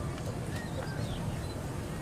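Steady low outdoor rumble with a few faint, short high bird chirps; no bell is ringing yet.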